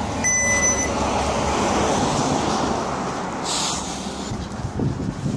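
A shop door's electronic beeper sounds once briefly at the start, then steady street traffic noise takes over, with a vehicle passing and a short hiss about three and a half seconds in.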